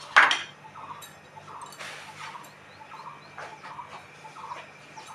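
A sharp clatter just after the start as the pressure cooker on the gas stove is handled. It is followed by faint, short bird calls repeating in the background.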